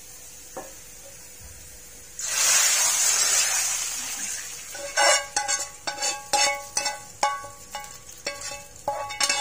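Hot tempering oil with fried onions, garlic and dried red chillies poured into a pot of cooked dal, hitting it with a loud sizzle about two seconds in that fades over the next two seconds. Then a spoon scrapes and knocks against the metal wok, ringing clinks about three a second.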